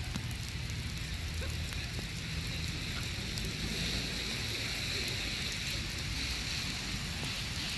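Wind rumbling on the phone's microphone, with a steady hiss over it.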